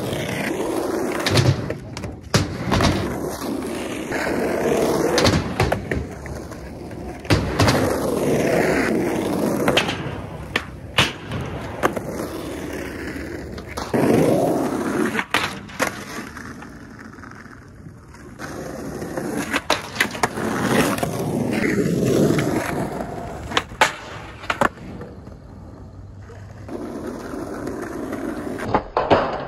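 Skateboard wheels rolling over coarse asphalt, swelling and fading as skaters ride past several times, with sharp clacks and knocks of boards hitting the ground.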